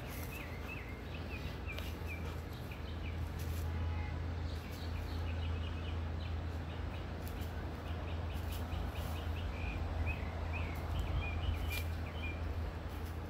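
A songbird chirping and singing, a steady run of short high notes that stops shortly before the end, over a steady low hum and a few faint clicks.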